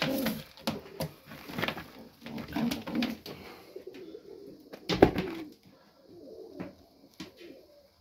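Domestic pigeons cooing in the loft, with a few sharp clicks and one loud knock about five seconds in.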